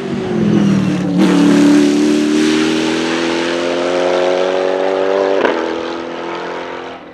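Arrinera Hussarya GT3's LS3 V8 race engine passing and accelerating hard away, its pitch climbing steadily through a gear. Short breaks about a second in and about five and a half seconds in mark gear changes, and the sound fades near the end as the car draws off.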